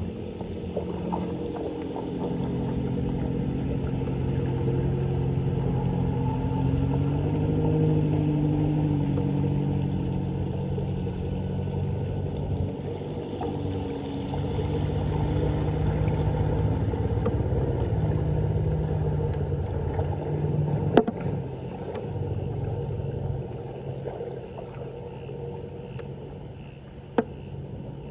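Floodwater draining down a street drain: a continuous low rumble with a wavering, droning gurgle. Two sharp knocks come near the end.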